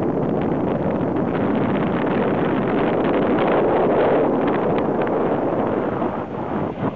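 Strong wind buffeting the microphone on an open slope, a steady rushing that turns gusty and uneven about six seconds in.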